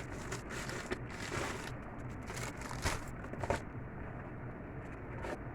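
Packages rustling and crinkling as they are handled, with a few short scrapes and crackles.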